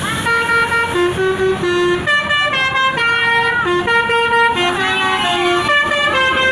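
Telolet horn on a PO Haryanto coach: a multi-tone musical air horn playing a quick tune of stepped notes, several tones sounding together and changing pitch every few tenths of a second.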